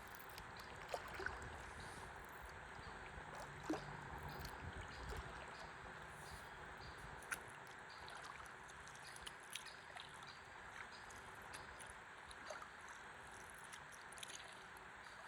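River water flowing gently, with a few small drips and splashes now and then.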